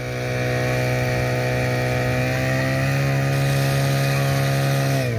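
Fire pump engine running hard and steady at high revs, driving water through the hose lines to the jets. Its pitch creeps up slightly, then drops near the end.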